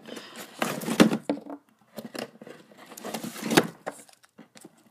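Rolls of duct tape being pulled out of a display case and handled: irregular rustling and scraping with knocks, the loudest about a second in and again around three and a half seconds in.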